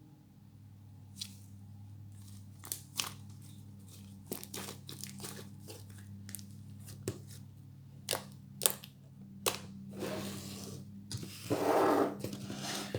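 Fluffy shaving-foam slime being stretched and squished by hand, giving scattered sharp pops and clicks, with a longer tearing crackle about eleven and a half seconds in.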